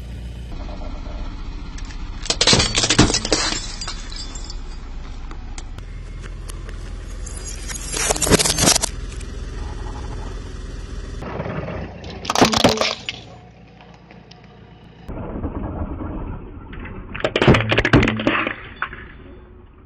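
Car tyre rolling over and crushing disposable plastic lighters: four bursts of cracking and crunching several seconds apart, over the car's engine running low.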